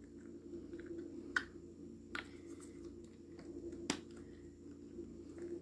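A few faint clicks and taps, the sharpest about four seconds in, from hands handling plastic baby-bottle rings and nipples, over a faint steady hum.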